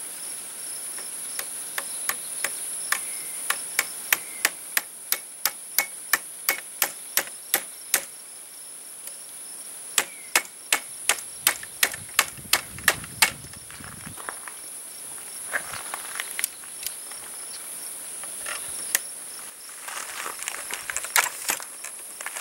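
Small hammer tapping a Maxi-ball down into the muzzle of a black-powder muzzleloading rifle: two runs of sharp, evenly spaced taps about three a second, with a pause of about two seconds between them. A few lighter clicks follow near the end.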